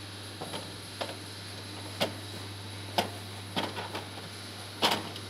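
Plastic knocks and clicks as the milk jar and its spout are handled and pushed into place in a Whirlpool ACE 102 IX built-in coffee machine: a string of short, sharp knocks, the loudest near the end, over a steady low hum.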